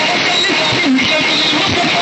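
Music with guitar over a loud, steady rushing noise, with scattered voices.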